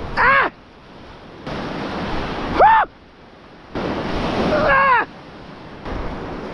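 Surf washing over a rock shelf, with wind on the microphone, in short stretches that cut in and out. Three short shouted grunts, each rising and then falling in pitch, come near the start, a little before the middle and about two thirds of the way in, as lures are cast.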